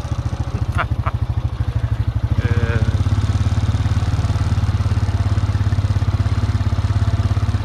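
A vehicle's engine running steadily at low speed, its even firing pulses the loudest sound throughout.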